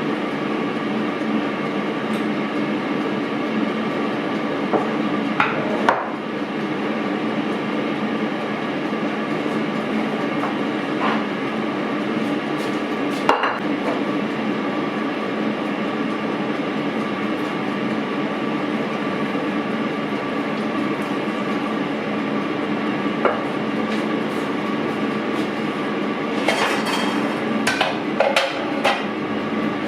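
Kitchen utensils and cookware knocking and clinking now and then, with a busier cluster of clinks near the end, over a steady mechanical hum.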